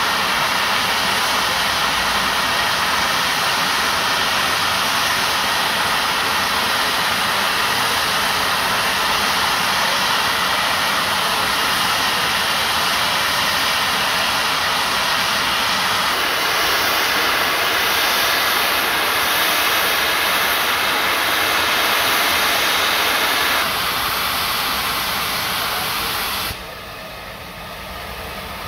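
Steam hissing steadily from the stationary LMS Jubilee class 4-6-0 steam locomotive No. 45596 Bahamas. The hiss eases a little near the end, then drops sharply just before the end.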